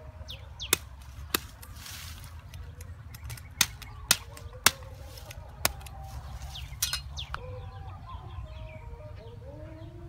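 Cleaver blade striking thin bamboo stalks: about seven sharp, separate chops spread unevenly over the first seven seconds. Birds chirp in the background, more densely in the last few seconds.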